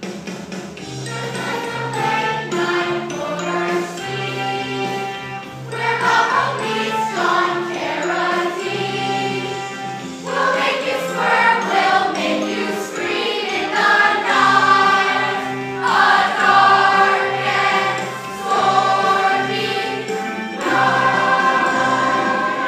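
Stage ensemble singing in chorus over instrumental accompaniment, in phrases that swell and pause.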